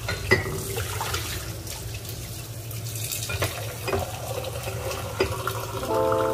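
Steady rushing noise like running water, with a low rumble and a few sharp clicks; guitar music begins near the end.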